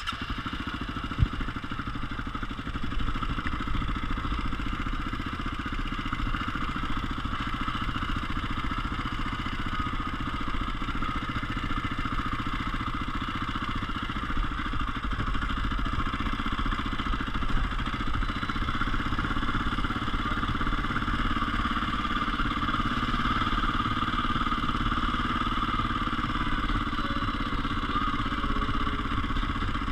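KTM EXC enduro motorcycle's single-cylinder engine running steadily at low throttle as the bike rolls slowly.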